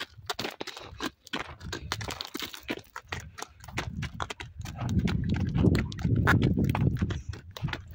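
Donkey's hooves clopping irregularly on a gravel track as it walks under a heavy load. A louder low rustle from about the middle to near the end.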